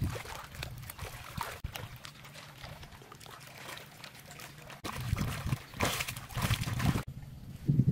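Lake water sloshing and splashing around a person wading and swimming, with louder splashes from hands slapping the water about five seconds in; the sound cuts off abruptly near the end.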